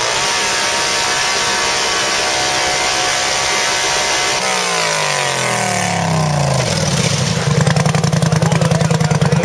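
Four-wheeler engine held at high revs under load while the buried quad spins its tires in deep mud. The pitch drops about halfway through, then climbs back and holds high.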